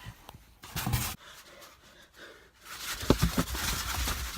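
A man breathing hard in short, panting breaths, quiet in the middle and heavier again near the end.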